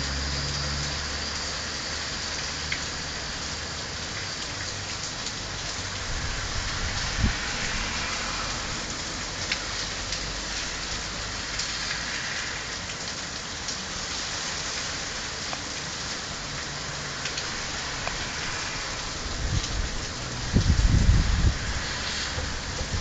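Heavy rain falling steadily on a street, garden and paving, with scattered close drop taps. Brief low rumbles come in near the end.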